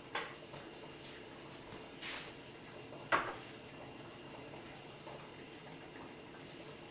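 A few short knocks and clatters of dishes and kitchen items being picked up and set down on a countertop, the loudest about three seconds in.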